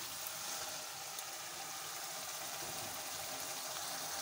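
Thick taro-root (arvi) curry cooking in an aluminium pot over a gas flame, a steady sizzling and bubbling hiss as the oily masala fries in the last stage of cooking.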